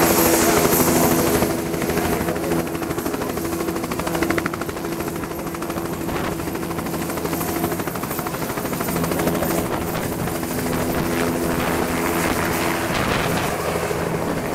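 Bell 206L LongRanger light turbine helicopter running at flight speed, a steady stack of tones over rotor and engine noise, lifting off the pad near the end.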